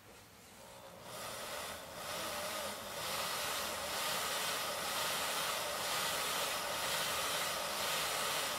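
Kato E3-1000 Shinkansen Tsubasa N-scale motor car running on a roller test stand: a soft, even whir of the motor and the wheels turning on the rollers. It builds over the first couple of seconds as the voltage is brought up to 10 V, then holds steady, measuring about 25–28 dB.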